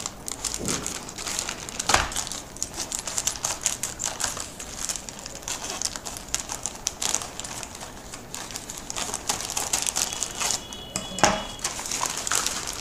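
Plastic courier mailer bag crinkling and crackling as it is cut open with scissors and pulled apart, a dense run of small clicks with a few louder snaps.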